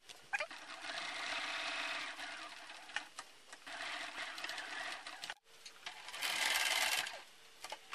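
Bernina B 550 Quilters Edition sewing machine stitching fabric in three short runs with pauses between them, the last run the loudest.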